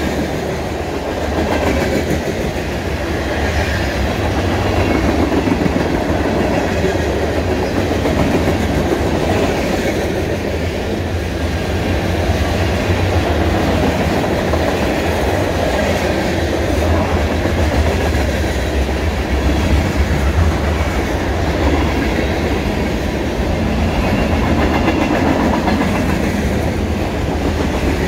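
Freight train cars rolling past: covered grain hoppers, then a gondola and tank cars, their steel wheels making a steady, unbroken rumble on the rails.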